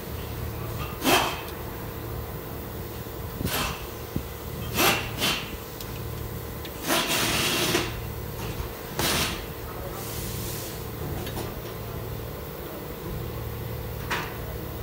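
Pliers and hands working on a rear drum brake's shoe and spring hardware: sharp metal knocks and clinks at irregular intervals, the loudest about a second in, with a longer scrape a little before halfway.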